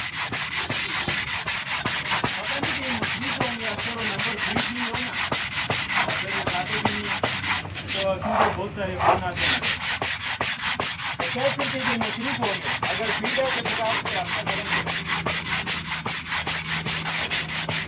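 Sandpaper wrapped around a wooden block rubbed back and forth over a cast-iron brake disc in a steady run of quick, even strokes, scrubbing rust off the braking surface.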